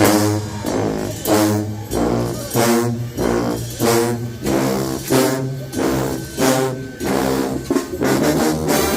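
Mexican banda brass band with tubas playing: the horns hit short accented chords about every two-thirds of a second over a steady low tuba line, moving into held chords near the end.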